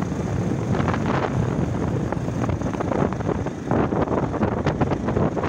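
Wind buffeting the microphone of a moving motorcycle, with the motorcycle's engine running underneath; the rush rises and falls in uneven gusts.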